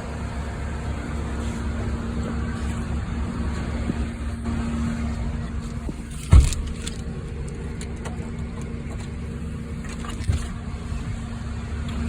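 A vehicle engine idling steadily with a constant low hum, a single loud thump about six seconds in and a lighter knock about ten seconds in.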